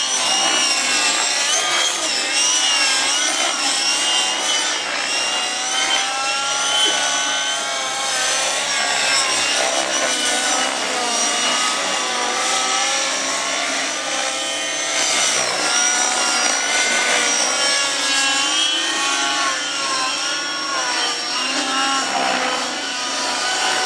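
Radio-controlled model helicopter engine and rotor whine, the pitch rising and falling continuously as it flies aerobatics.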